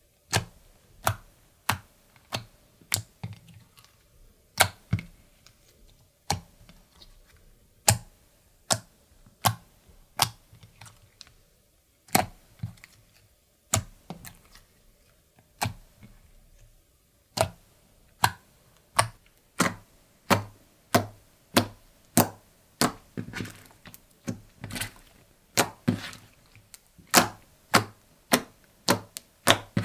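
Slime being pressed and folded by hand, giving sharp popping clicks from trapped air, about one to two a second and coming faster near the end.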